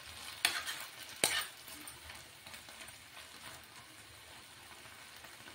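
Metal spoon stirring chopped vegetables in a non-stick pan on a gas stove, striking the pan with two sharp clinks in the first second and a half, over a faint steady hiss.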